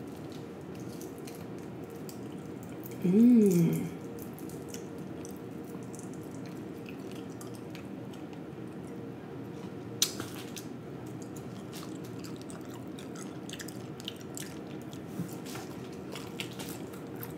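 Eating whole fried snapper with the fingers: flesh and crispy skin pulled apart and chewed, with scattered sharp little clicks and crackles, the sharpest about ten seconds in, over a steady low background hum. About three seconds in comes a short, loud "mmm" of enjoyment that rises and falls in pitch.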